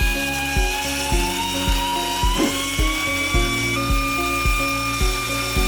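Pneumatic air belt sander running with a high whine that climbs slowly in pitch over the first few seconds, then holds steady. Background music with a steady beat plays underneath.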